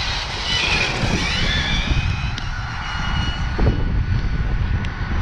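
Onboard sound of a HoBao Hyper 10SC electric RC short-course truck running at speed on wet tarmac: the electric motor and pinion gearing whine high, shifting pitch in the first second or so and then holding steady, over a heavy low rumble of wind and tyres on the onboard microphone.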